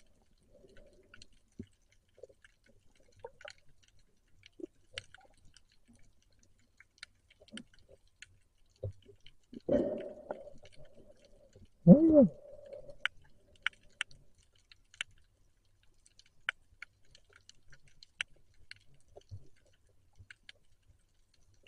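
Underwater ambience: scattered faint clicks and crackles, with two louder muffled bursts about ten and twelve seconds in, the second the loudest and carrying a tone that rises and falls.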